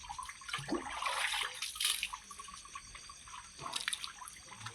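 Water splashing and running over a tractor front tyre as the mud is washed off it, strongest in the first couple of seconds and fainter after.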